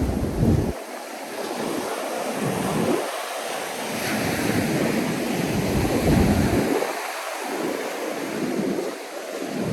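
Ocean surf washing onto a sandy beach, with wind gusting on the microphone as a low rumble that comes and goes every second or so.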